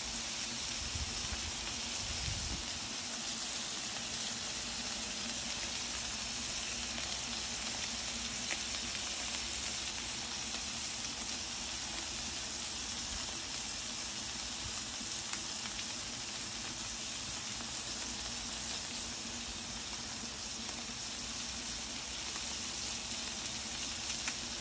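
Cheese-topped smash burger patties sizzling steadily on a Blackstone flat-top griddle.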